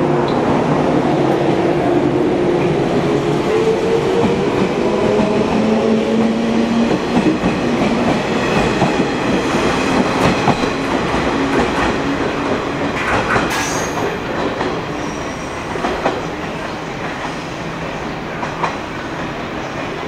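JR East 115 series electric train pulling away: its traction motors whine, rising in pitch over the first several seconds as it accelerates. Then the wheels clack over rail joints, sharp clicks scattered through the second half, while the sound slowly fades.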